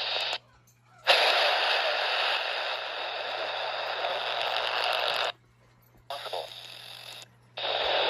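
Handheld radio receiver giving out steady static hiss as it is switched between bands. The hiss cuts out twice for under a second as the tuning changes, and comes back on the weather band near the end.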